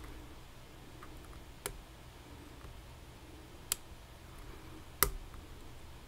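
Three small, sharp clicks from lock-picking work on a Vachette VIP pin-tumbler lock, the last the loudest, with a few faint ticks between.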